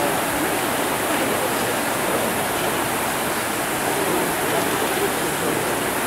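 Steady rushing din of a rowing ergometer race in a sports hall: many ergometer flywheels spinning together, with indistinct crowd voices in it.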